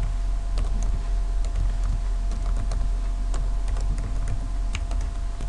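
Computer keyboard typing: irregular, separate keystrokes as a project name is entered, over a steady low hum.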